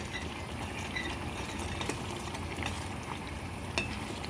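Onion-and-pepper sauce in oil sizzling and bubbling on high heat in a stainless steel pot, while a metal spoon stirs it, scraping and clicking against the pot now and then, with a sharper clink near the end. The sauce is starting to stick to the bottom.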